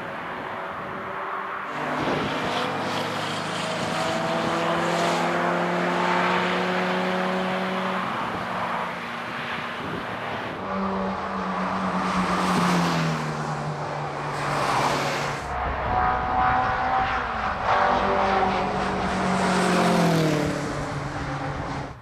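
Several racing cars drive past one after another at speed, their engine notes rising under acceleration and dropping in pitch as each goes by. Wind rumbles on the microphone.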